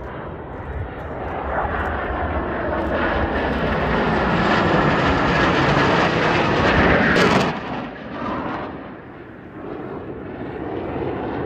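Low pass of Patrouille Suisse Northrop F-5E Tiger II jets, their twin J85 turbojets rising to a loud roar that falls in pitch as they pass. The roar drops away suddenly about two-thirds of the way through, then builds again as another jet approaches.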